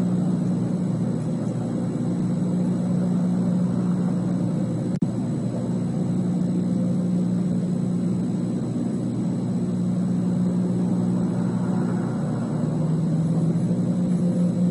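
Steady low rumble and hiss on an outdoor nest-camera microphone, broken by a very brief dropout about five seconds in.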